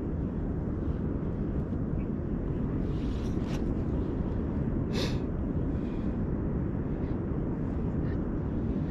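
Steady low outdoor rumble, with two short sharp sounds about three and a half and five seconds in.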